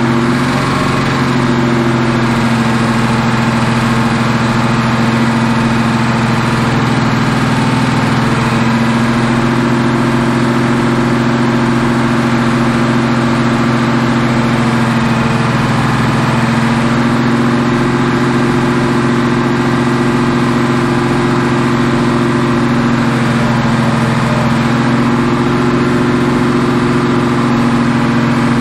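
Mopar 440 big-block V8 running steadily while its new flat-tappet camshaft is run in, with small shifts in engine speed a few times.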